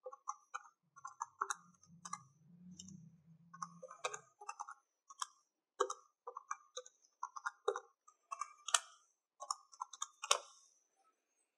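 Calculator keys being pressed in quick, irregular succession, a string of small plastic clicks.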